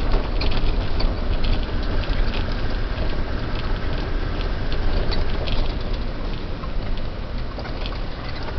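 Land Rover Defender 110 on 38-inch mud tyres driving over a rough, wet dirt track, heard from inside the cab: steady engine and drivetrain rumble with many short, irregular clicks and rattles.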